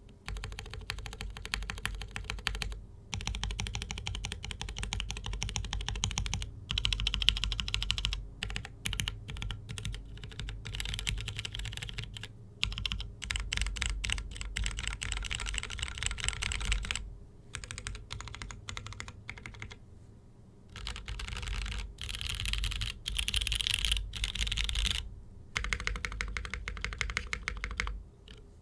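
Continuous typing on a custom mechanical keyboard with linear Cherry MX Black-based switches, GMK keycaps and an aluminium full plate in an isolated top mount. The keystrokes come in fast runs broken by short pauses.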